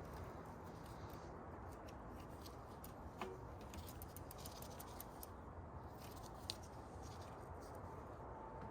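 Faint scattered metallic clicks and ticks from a mountain bike's chain and derailleur being handled as the chain is worked back onto the gears by hand, over a low steady background noise.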